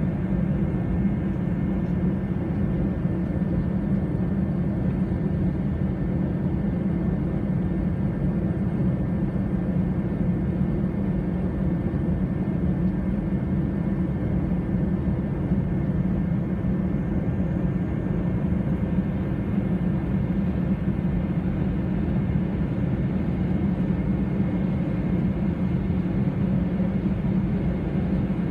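Steady cabin hum inside an Airbus A320 taxiing with its jet engines at idle, with a faint steady whine over it.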